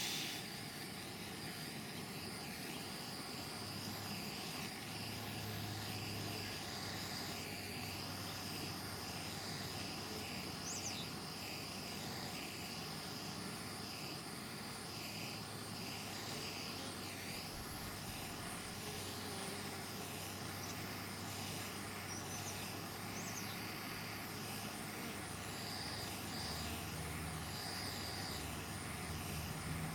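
Hand-held propane torch burning with a steady hiss as it heats a brass oxalic acid vaporizer at a beehive entrance. Faint insect chirping repeats about once a second in the background.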